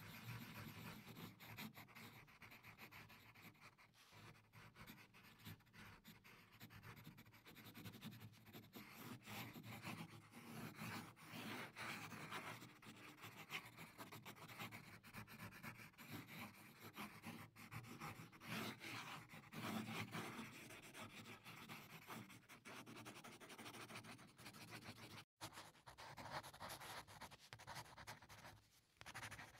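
Faint scratching and rubbing of a pencil on drawing paper, in uneven strokes as a portrait is shaded and sketched.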